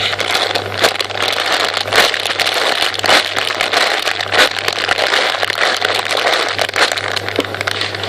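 Crackling, rustling handling noise close to the microphone as a squishy toy is turned over in the hands, full of small clicks, over a steady low hum.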